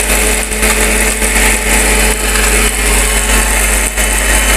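High-powered blender with a six-blade jar running steadily at full speed, grinding whole dried turmeric into powder.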